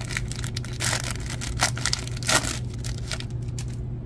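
A plastic baseball-card pack wrapper being torn open and crinkled, a run of sharp crackles with two louder rips. The crackling stops about three seconds in, as the cards are slid out.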